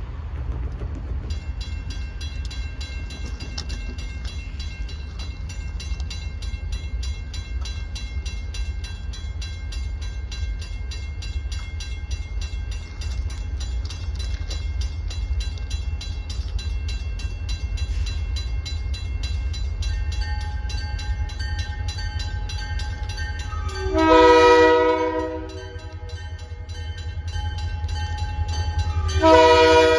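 Grade crossing bell ringing rapidly and steadily from about a second in, over a low rumble. A freight locomotive's air horn sounds one short blast a few seconds before the end, then a longer blast begins at the very end as the train nears the crossing.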